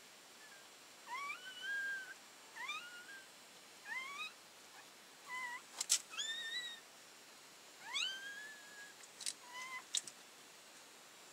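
Newborn puppies squealing: a string of thin, high cries, each rising in pitch, about seven in all, with a few sharp clicks in among them.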